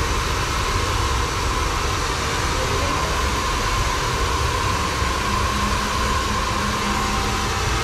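Handheld hair dryer blowing steadily at close range: a constant rush of air with a thin, steady motor whine.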